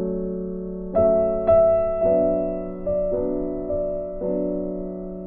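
Background piano music: slow notes and chords, each struck and then fading.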